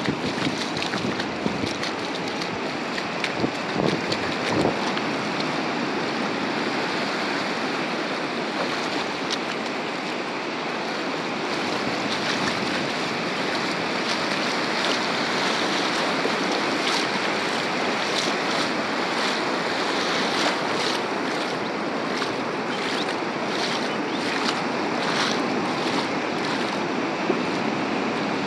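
Ocean surf breaking and washing up the beach: a steady wash of noise, with scattered faint ticks in the second half.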